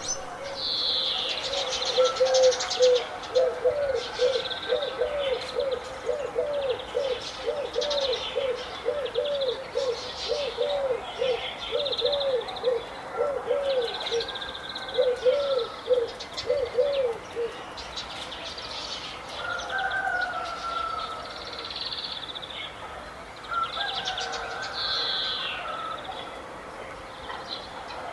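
Several birds chirping and trilling, with a low hooting note repeated about two to three times a second through the first two-thirds before it stops.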